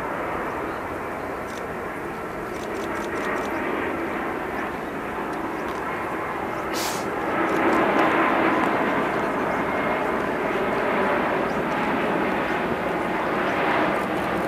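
Boeing 787-8's Rolls-Royce Trent 1000 turbofans at approach power on final approach to landing: a steady rushing jet noise that swells about halfway through as the airliner comes closer, then stays loud.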